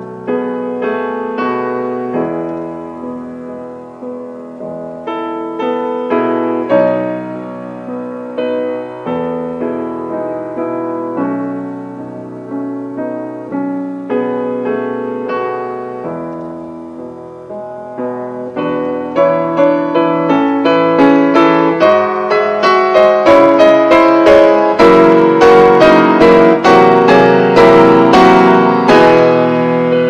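Solo piano music: a gentle run of single notes and chords that grows louder and busier about two-thirds of the way through, with quick repeated notes near the end.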